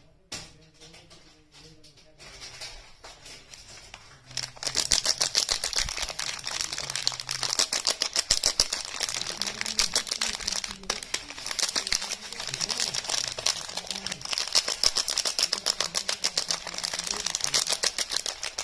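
Rapid, dense crackling and clicking from handling soap and its packaging close to the microphone, starting about four and a half seconds in after a quieter stretch.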